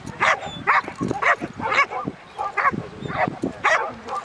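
A Belgian Malinois-type dog barking repeatedly in short, excited barks, about two a second, while jumping up at its handler.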